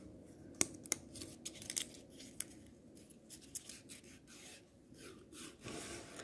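Faint rustling and crinkling of a narrow paper slip being unrolled and smoothed out by hand, with a few small sharp ticks of the paper in the first couple of seconds.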